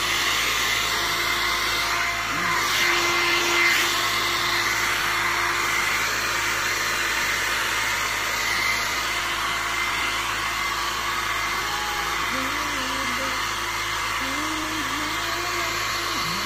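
Handheld hair dryer running steadily, blowing on a poodle's damp coat: an even rushing whoosh with a thin whine.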